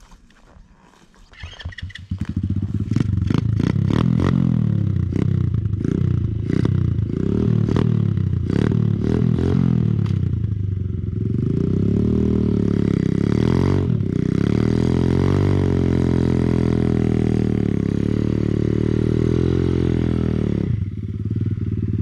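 X-Motos 125 pit bike's single-cylinder four-stroke engine coming in loud about two seconds in, revved in a run of quick rising-and-falling throttle blips, then held at a steadier, higher rev with a brief dip near the middle.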